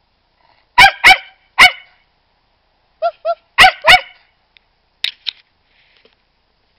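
Medium-sized mixed-breed dog barking in bursts: three loud barks about a second in, then two shorter, softer barks running into two more loud ones a couple of seconds later, and two fainter barks after that.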